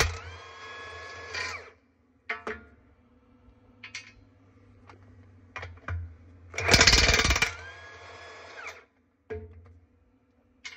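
Cordless impact wrench hammering a dual-wheel lug nut loose, then spinning freely with a steady whine as the nut runs off, stopping abruptly; the whine follows the end of one burst at the start, and a second hammer-then-whine comes about seven seconds in. A few light metallic clicks fall between the two.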